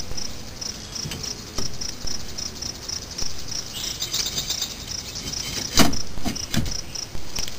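Metal clicks, clinks and knocks from a minivan's rear wheel hub and bearing parts being handled and fitted by hand, with one sharp knock the loudest, about three-quarters of the way in. Crickets chirp steadily in the background.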